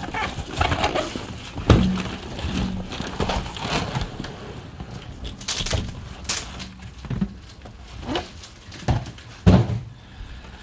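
Cardboard shipping case and sealed trading-card hobby boxes scraping and knocking as the case is flipped and the boxes are slid out and stacked, with a string of short knocks and one sharp knock near the end.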